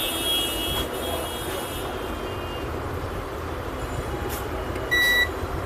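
Steady background noise, then one short electronic beep about five seconds in.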